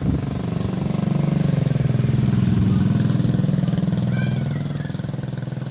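Small motorcycle passing at low speed, its engine note swelling over the first three seconds and then fading away.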